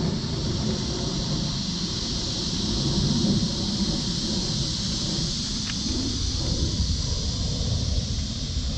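Cicadas calling in a steady, unbroken high drone, over a low rumble of wind on the microphone.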